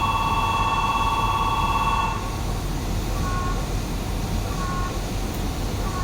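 Electronic departure buzzer at a station stop, a steady two-pitch tone that cuts off about two seconds in. After it, a short two-note chime repeats about every second and a half, over the low steady hum of the standing train.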